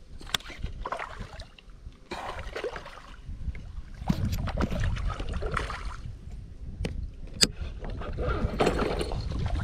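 Water sloshing and lapping against a plastic kayak in uneven surges, over a steady low wind rumble on the microphone, with a few sharp clicks.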